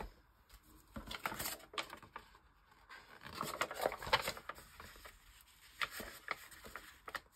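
Paper and washi tape being handled on a craft table: rustling and scraping of paper signatures, with a few light ticks and taps as the tape is pressed down. The rustling comes in bursts, strongest about a second in and around four seconds in.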